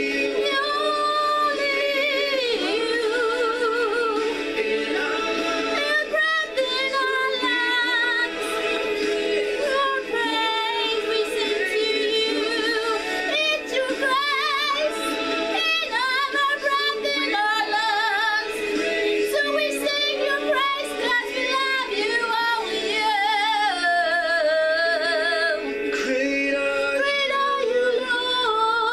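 A woman singing a worship song with a wavering vibrato, over a sustained instrumental backing.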